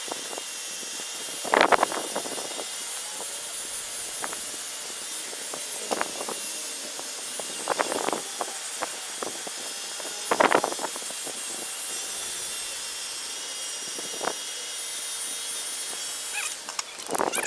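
Pet grooming vacuum running with its clipper attachment: a steady hiss of suction, with brief louder rasps every few seconds as the clipper works through matted dog fur.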